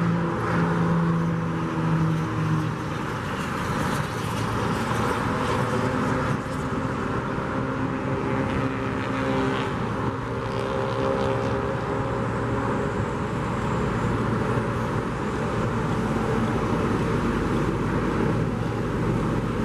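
Motor engines running over a steady outdoor rumble, several engine notes rising, falling and taking over from one another.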